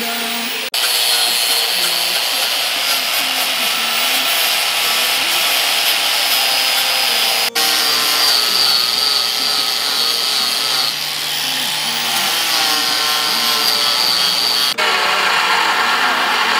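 Corded DeWalt die grinder running at speed against the steel of a mower deck, grinding around stress cracks down to bare metal ahead of welding. A harsh grinding hiss sits under a steady high whine, and the sound drops out briefly about a second in, about halfway and near the end.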